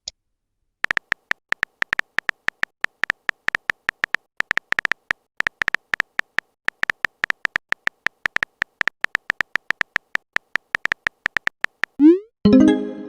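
Phone keyboard typing clicks from a text-message animation: a long, quick, irregular run of ticks, about four or five a second. Near the end comes a message sound effect, a rising swoosh followed by a short chime.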